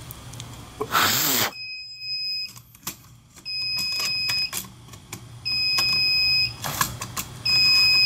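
Fire alarm system sounder in alarm, the sign that the smoke detector's alarm has been verified: a high-pitched tone about a second long, repeating about every two seconds from about a second and a half in. A short hiss comes just before the first tone.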